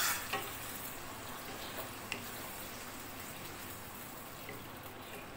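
Yogurt-marinated liver frying in hot ghee in an iron karahi: a steady sizzling hiss that slowly dies down, with a few light knocks of the wooden stirring spoon.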